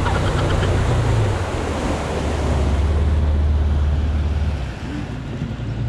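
Outboard motor running at speed on a small open boat, a steady low hum under water rushing past the hull and wind buffeting the microphone. The engine's hum drops away near the end.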